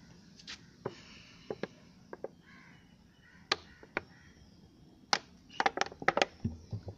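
Sparse sharp clicks and light taps from a plastic bottle being handled and tilted toward a candle. The clicks come closer together in the last couple of seconds.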